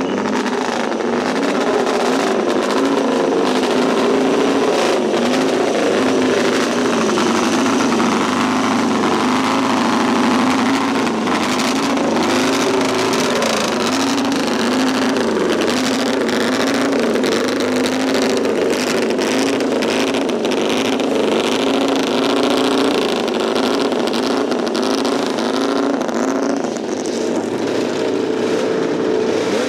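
Racing motorcycle engines running in the paddock, the throttle blipped so the revs rise and fall every second or two.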